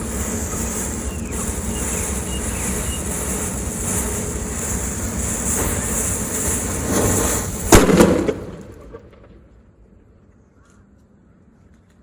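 Anar (flower-pot fountain firework) hissing loudly as it sprays sparks, then one sharp bang about eight seconds in, after which the hiss dies away.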